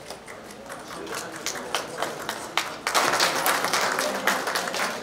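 Audience applauding. Scattered claps at first grow denser and louder about three seconds in, as the award is handed over.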